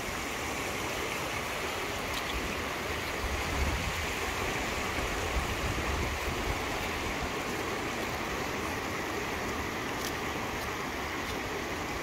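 Rhiwargor waterfall: a steady, even rush of falling water.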